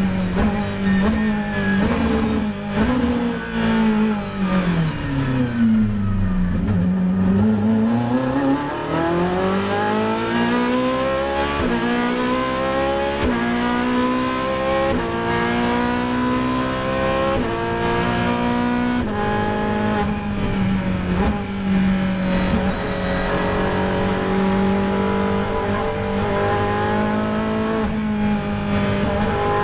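Ferrari 458 GT3's V8 race engine heard from inside the cockpit. The engine note falls smoothly as the car slows, then climbs through several quick upshifts and holds a steady high note at speed for the last third.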